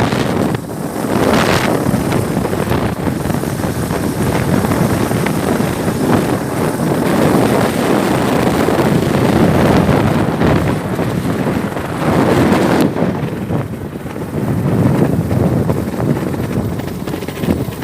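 Gusty wind buffeting the phone's microphone as a loud, rushing rumble that swells and eases.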